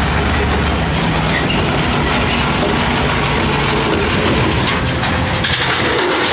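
Heavy hydraulic excavator working, its diesel engine running under load with dense, steady rattling and clanking.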